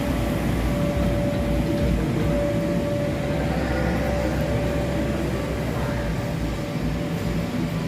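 Steady drone of the electric blower fans that keep inflatable bounce houses and slides inflated, a low rumble with a constant hum.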